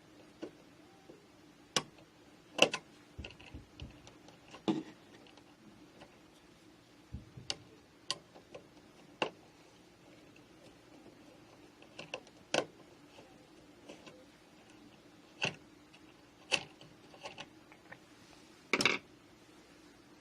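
Irregular light clicks and taps of a screwdriver against the metal mounting strap and screws of a wall switch as the screws are backed out, a few seconds apart, over a faint steady hum.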